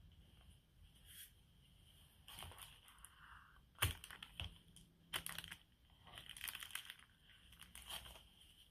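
Several short bursts of crinkling and rustling with sharp clicks, the loudest about four seconds in, over a faint steady high-pitched hum.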